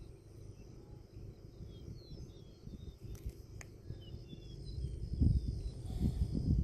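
Birds chirping and insects trilling in open country, with gusty wind buffeting the microphone. The wind rumble grows louder near the end.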